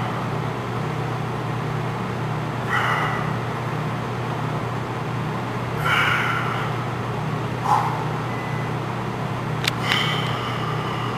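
A weightlifter's short strained grunts, four of them spaced a few seconds apart, one with each rep of barbell biceps curls. They sit over a steady hum.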